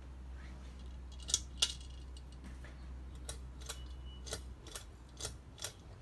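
Pull-chain switches on a Hunter Stockbridge ceiling fan clicking as the chains are tugged, with the chains jingling: two sharp clicks a little over a second in, then a run of about six lighter clicks roughly half a second apart. A low steady hum runs underneath.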